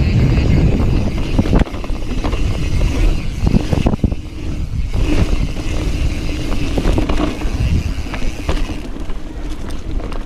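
Mountain bike ridden at speed on a dirt singletrack: wind rushing over the camera microphone and tyres rolling on dirt, with frequent knocks and rattles from the bike over bumps.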